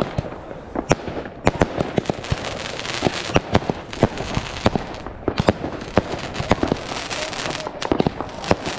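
A continuous barrage of fireworks: rockets whizzing up and bursting, several sharp bangs a second at irregular spacing, over a thick crackle that is densest in the middle.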